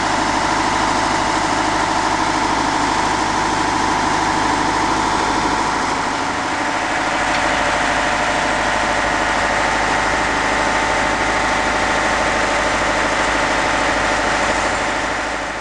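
Large engine running steadily at idle, with a steady high whine over it; it fades out at the very end.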